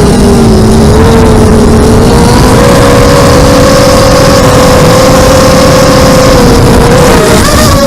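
Motor of an FPV aircraft running with a steady whine, heard over heavy wind rush. Its pitch steps up a little early on and wavers and dips near the end as the throttle changes.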